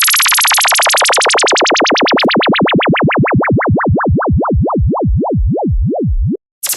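DJ synthesizer sound effect: a loud electronic tone sweeping rapidly up and down in pitch, the sweeps slowing down and sinking lower until it cuts off suddenly near the end. A different effect with falling whistle-like glides starts just as it ends.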